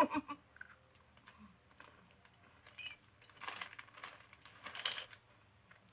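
Crunchy snack mix being handled, crackling and clicking in a few short bursts about three, three and a half and five seconds in.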